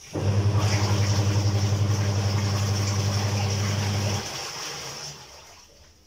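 Twin-tub washing machine's spin-dryer motor running with a low hum and a rush of water, cutting off about four seconds in and winding down.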